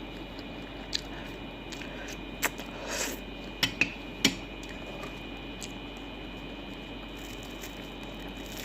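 About five sharp clicks of cutlery against a plate in the first half, with soft eating sounds, over a steady room hum.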